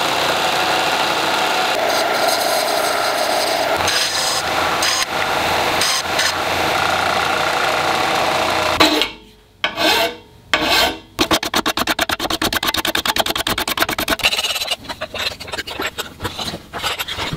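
A steel bolt head being ground on a power disc sander: a steady, loud grinding rasp that cuts off a little past halfway and gives way to a fast, even ticking. In the last few seconds, uneven hand-file strokes cutting soft brass.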